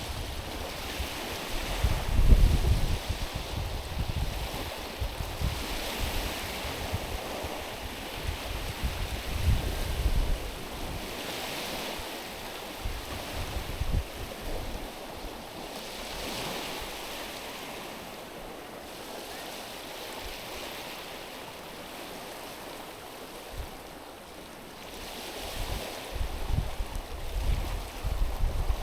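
Small waves washing in over a stony, pebbly shore, a hiss that swells and fades about every five seconds. Low rumbling gusts of wind hit the microphone a couple of times, most strongly near the end.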